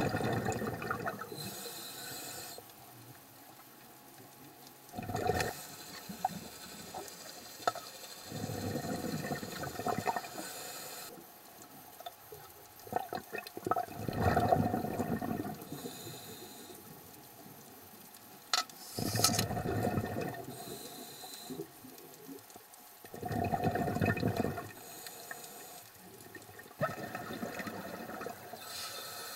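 Scuba diver breathing through a regulator underwater: a gurgling rush of exhaled bubbles about every four to five seconds, with a fainter hiss of the inhale between them.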